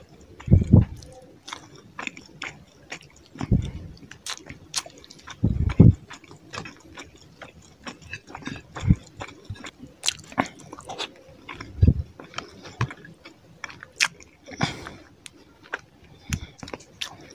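Close-miked eating of fish curry and rice: wet chewing with many short mouth smacks and clicks, and a few deep thumps among them.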